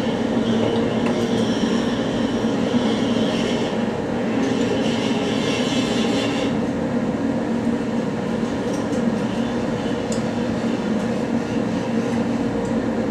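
Steady, loud drone of running machinery with a constant low hum. A hiss lies over it from about half a second in until about six and a half seconds in, then stops.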